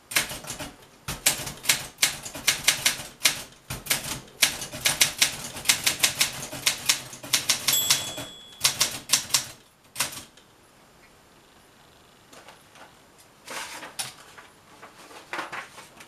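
1967 Olympia SM9 manual typewriter typing fast, with a quick run of sharp key strikes for about ten seconds. Its margin bell rings once, briefly, about eight seconds in. After a pause come a few softer clicks and rustles as the typed sheet is taken out of the platen.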